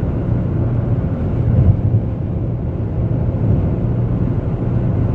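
Steady road and tyre rumble heard from inside a car's cabin while driving at highway speed.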